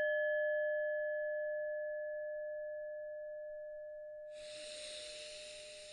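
A single struck bell tone ringing and slowly fading. About four seconds in, a long, slow breath out is heard over the last of the ringing.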